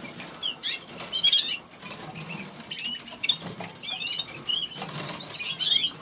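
A room of caged canaries calling and chirping: many short rising and falling notes overlapping, with wings fluttering in the cages.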